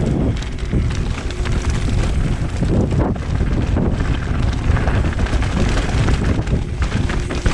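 Wind buffeting the microphone over a mountain bike rolling down a dirt trail: a steady rushing of tyres on dirt, with frequent small clicks and rattles from the bike.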